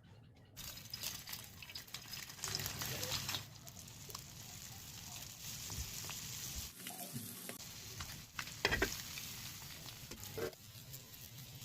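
Food sizzling as it fries in hot oil in a pan, stirred with a utensil that clicks and scrapes against the pan, with one sharp knock about nine seconds in.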